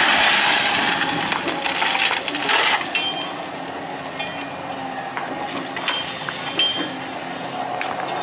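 Crushed gravel pouring out of a Caterpillar 320D excavator's bucket onto a pile, a loud rushing rattle for the first two to three seconds. It then thins out to scattered clinks of single stones rolling and settling, over the steady hum of the excavator's diesel engine.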